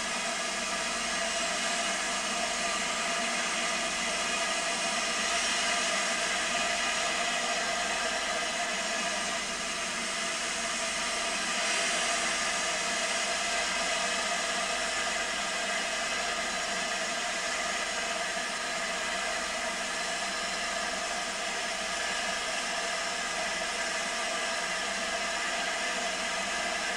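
Steam locomotive standing with steam hissing steadily.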